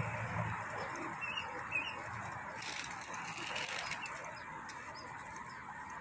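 Steady hiss of road traffic from the bridge, with two short, high chirps about a second in.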